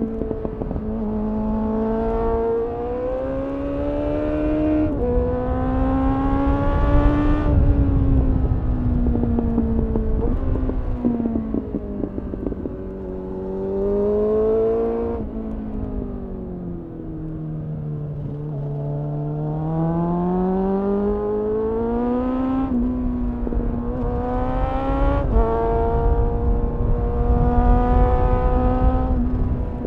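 Suzuki GSF 600 Bandit's inline-four engine through a GPR Furore Nero aftermarket exhaust, heard from on the bike: it pulls up through the revs with a sharp drop in pitch at each upshift, about five times, and slows on engine braking in the middle before accelerating hard again. Wind rushes over the microphone throughout.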